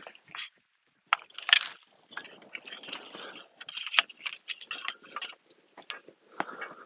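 Soil being dug and rummaged through by hand and garden fork to lift potatoes: irregular crumbly scraping and rustling with small clicks, and one sharp click about four seconds in.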